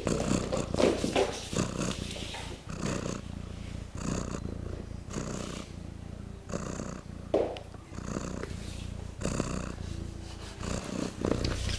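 Cat purring, a steady rasp that swells and fades with each breath about twice a second.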